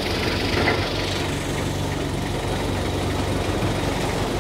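Forklift engine idling with a steady low drone.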